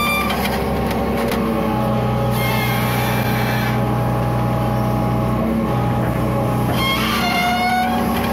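Hitachi EX120 excavator's diesel engine running steadily under load while its long-reach arm works the bucket along a mud ditch slope. Higher tones come and go over the engine note.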